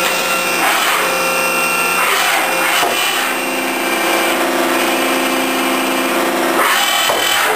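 Makino A-77 CNC horizontal machining center running under power: a steady machine hum with several steady whining tones over a hiss. The tones shift about three seconds in and again near the end.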